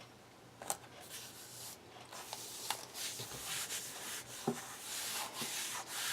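Vinyl wall-decal sticker being rubbed and smoothed down by hand onto a painted canvas: a dry, scratchy rubbing with small clicks and crackles, starting about two seconds in and getting louder.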